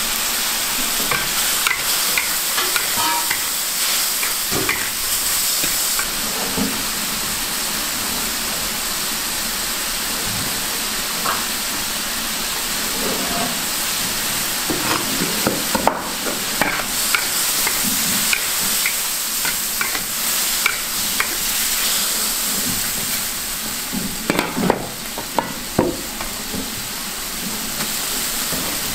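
Shrimp and cuttlefish sizzling and bubbling in sauce in a large wok, with a steady hiss. A metal wok spatula scrapes and knocks against the pan as the food is stirred, most busily about 25 seconds in.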